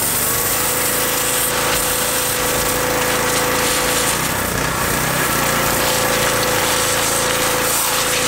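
3000 PSI pressure washer running, its jet hissing hard against a watermelon's rind and the wet pavement. A steady tone runs underneath and drops out briefly about halfway through.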